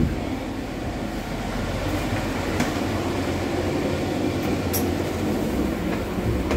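Steady rumble inside a passenger train carriage's vestibule, with a short knock at the start. A sharp burst of noise comes right at the end as the push-button automatic door between carriages opens.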